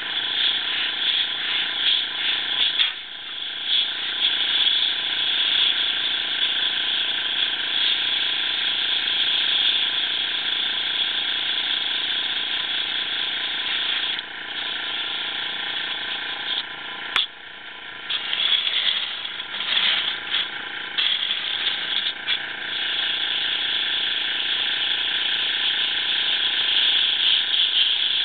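Siphon-feed airbrush hissing as it sprays paint, with a steady hum beneath. The hiss breaks off briefly a few times as the trigger is let off, then starts again.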